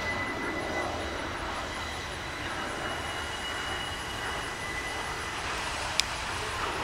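Distant jet noise from Snowbirds CT-114 Tutor jets flying overhead in pairs: a steady rush with a faint high whine. A single sharp click comes about six seconds in.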